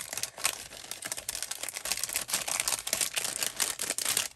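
Craft papers rustling and crackling as they are handled and leafed through: many crisp rustles close together.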